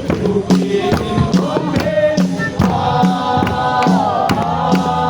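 A group singing a worship song together to a steady, even beat, with a repeating low accompaniment.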